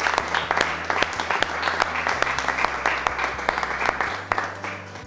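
A small group of people applauding, the clapping dying away near the end.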